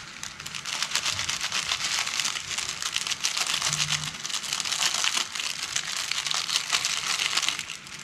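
A thin plastic ramen flake packet crinkling rapidly as it is squeezed and shaken out over a pan of boiling water. The crinkling stops shortly before the end, leaving the boiling water's bubbling.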